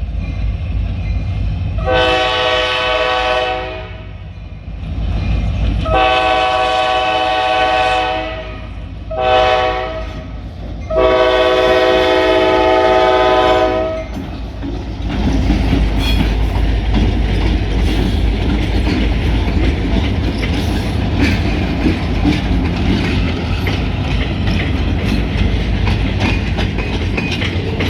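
EMD diesel freight locomotives, an SD40 leading a GP38, sounding a multi-note air horn in the grade-crossing pattern: long, long, short, long. A low engine rumble runs under the horn. From about halfway through, the locomotives and freight cars pass close by, their engines rumbling and their wheels clattering over the rail joints.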